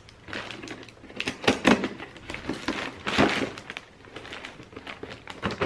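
Scissors cutting the packing tape on a small cardboard box, then the box being handled and opened: an irregular run of scrapes, rustles and cardboard knocks, loudest about a second and a half in and again around three seconds.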